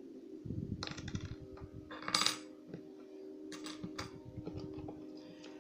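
Small metal lock parts, pin tumblers and springs, clinking and clicking onto a hard surface as the picked lock is taken apart, in a few separate clinks with the loudest a little after two seconds in.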